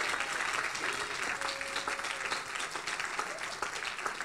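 Congregation applauding: many hands clapping steadily, with no single voice standing out.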